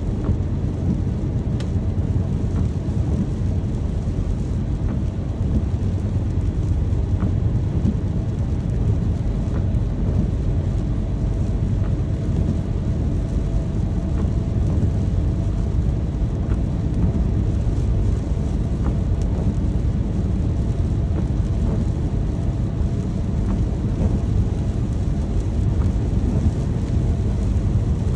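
Steady rain with a deep, continuous low rumble underneath and a few faint drop ticks.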